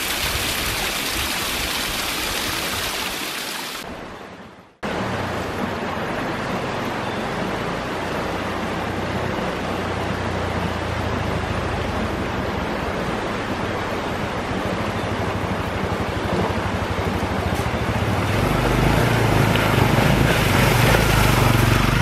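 Rushing wind noise that fades away about four seconds in, then the Honda CRF250L's single-cylinder engine running under heavy wind rush as the bike is ridden, its low hum growing louder near the end.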